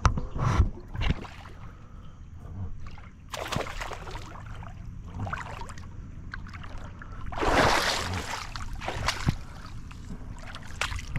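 Water sloshing and splashing around a small boat, with scattered knocks and handling noises; two louder splashy rushes come about three and a half and seven and a half seconds in.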